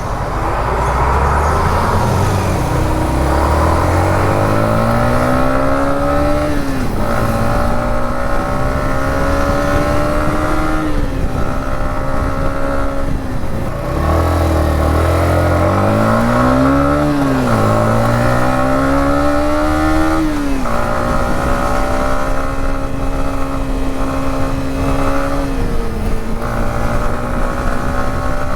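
Yamaha MT-15's single-cylinder engine through its stock exhaust, accelerating through the gears. The engine note climbs and drops back at each gear change, several times over.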